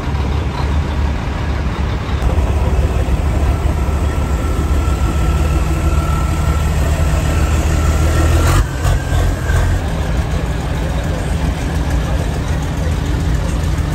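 Heavy truck engine idling steadily, a low even rumble. A single sharp knock comes about eight and a half seconds in.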